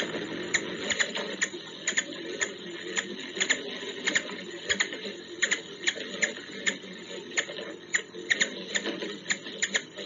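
Ruby-throated hummingbird giving sharp, dry chip notes in an irregular series of about two to three a second, over a steady low hum.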